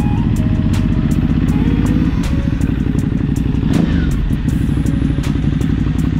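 Ducati Hypermotard 939's L-twin engine running at low revs as the motorcycle rolls slowly. Its pitch rises and falls once about two seconds in, then holds steady.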